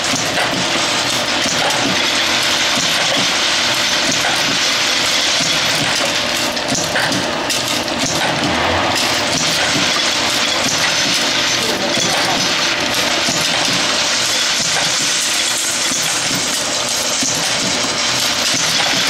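Camdex 2300 Series ammunition pull-and-put machine running continuously, giving a steady clatter as its tool-head cycles the cartridges.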